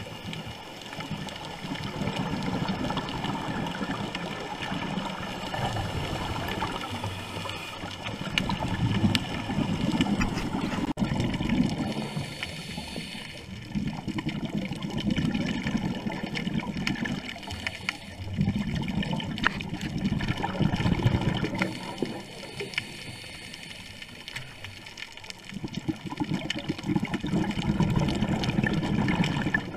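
Scuba diver's regulator breathing underwater: several rushes of exhaled bubbles of two to three seconds each, a few seconds apart, over a steady watery hiss.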